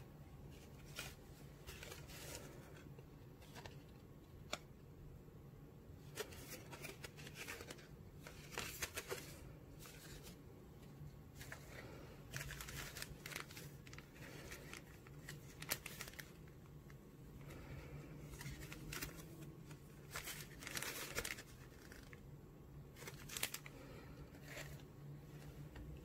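Plastic packaging crinkling and rustling as hands handle a Zippo replacement cotton-and-felt pack in its clear plastic bag, with scattered light clicks and taps.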